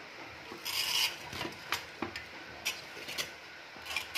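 Handling noise on a workbench: a short scrape, then several light knocks and clicks as the camera and desk lamp are shifted into place.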